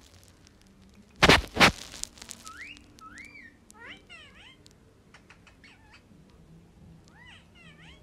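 Indian ringneck parakeet giving two loud, harsh squawks about a second in, then a run of softer rising and falling whistles and short chirps.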